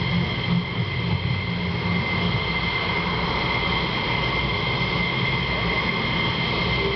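F-16 jet engines idling on the ramp: a steady high turbine whine over a low rumble.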